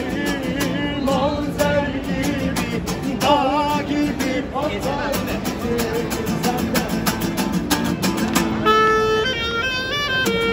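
Acoustic guitar strumming a steady rhythm accompaniment. Near the end a clarinet comes back in with a melody of held notes over it.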